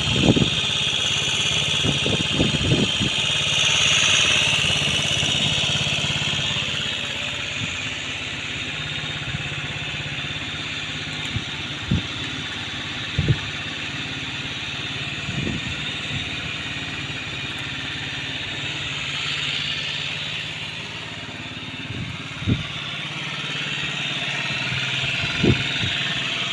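Aprilia Leonardo 125 scooter's single-cylinder four-stroke engine idling steadily after standing unused for a long time, swelling a little now and then. Occasional short sharp knocks come through over the running engine.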